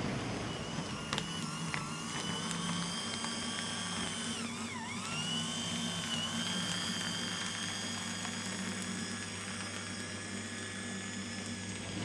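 Small electric motor of an HO-scale model train whining, over a steady low hum. The whine dips sharply in pitch about five seconds in, then climbs back, as the motor slows and picks up again. A couple of light clicks come near the start.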